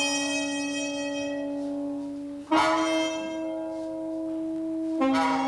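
Small wind ensemble of saxophone, trombone and a woodwind playing long held notes, a new accented note starting about halfway through and again near the end, the pitch stepping up at the second and back down at the third.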